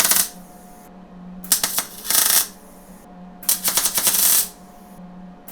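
Wire-feed welder gun laying tack welds: short bursts of crackling arc, each about a second long, joining the wastegate pipe to the turbo downpipe. There are three or four tacks with pauses between them, over a steady hum.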